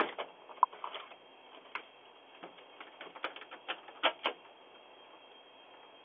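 A string of irregular sharp clicks and knocks, the loudest near the start and a close pair about four seconds in, heard through a Ring doorbell camera's narrow-band microphone.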